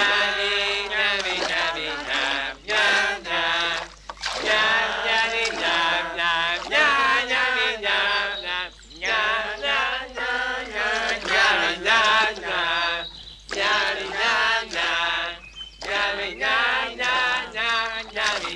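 A chorus of cartoon ants chanting a song in unison, in sung phrases broken by brief pauses.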